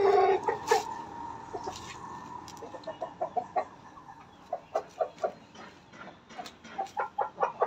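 Aseel rooster clucking: runs of short, evenly spaced notes, coming closer together near the end. A long call tails off just as it begins.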